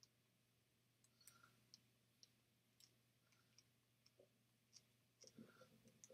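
Near silence with about ten faint, sharp clicks at irregular intervals: a TV remote's buttons being pressed to step across an on-screen keyboard. A brief faint low shuffle comes near the end.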